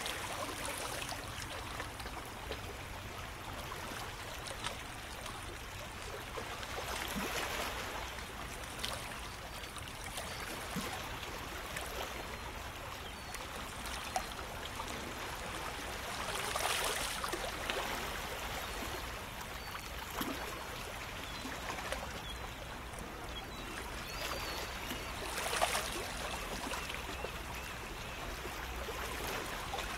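Shallow water lapping and trickling among rocks in a steady wash, swelling a little about every nine seconds.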